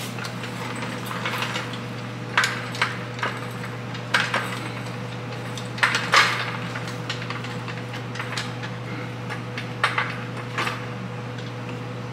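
Hydraulic floor jack being pumped under the oil pan to raise the engine slightly: about ten irregular metallic clanks from the jack and its handle.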